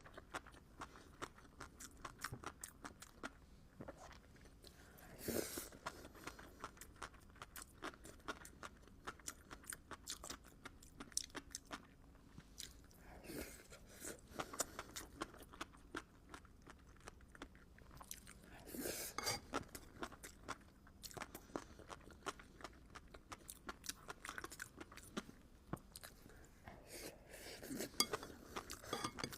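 Close-miked chewing and crunching of seafood: a steady patter of small wet clicks and crackles, broken by a few louder bites or crunches about 5, 13, 19 and 28 seconds in.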